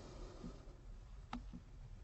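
Quiet room tone with a low hum, and a single faint click about a second and a half in, a computer pointing-device click as an item is selected on screen.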